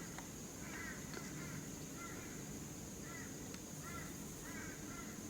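A bird giving a string of short, high calls, about one or two a second, over a steady high-pitched hum.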